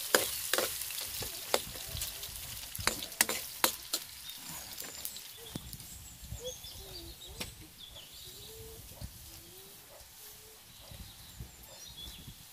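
Carrot strips sizzling as they fry in oil in a wok, with a metal ladle clicking against the pan several times in the first few seconds. After that the sound grows quieter, with rice being stirred by hand in a pot of water.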